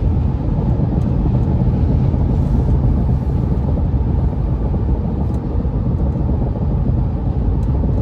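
Steady low rumble of road and tyre noise heard inside a car's cabin while cruising at freeway speed.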